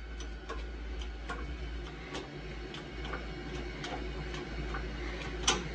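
Homemade 20-ton shop press pressing an extended wheel stud into a wheel hub: a steady run of sharp clicks, about two or three a second, with a louder crack near the end.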